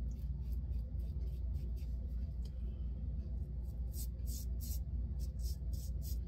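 Timeless 0.68 titanium safety razor scraping through lathered stubble in short strokes, a quick rasp two or three times a second, louder from about four seconds in, over a steady low hum.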